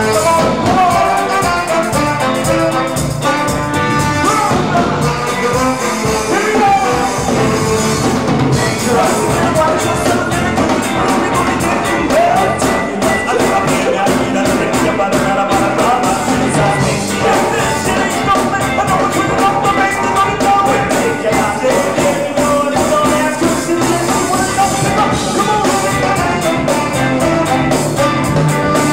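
Ska band playing live: a horn section of trombone, trumpet and saxophone over drums and bass.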